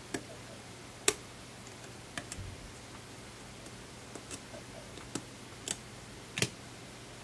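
Small, sharp, irregular clicks and taps of hand tools working on an opened iPhone 6S's internal parts, about eight of them, the loudest about a second in.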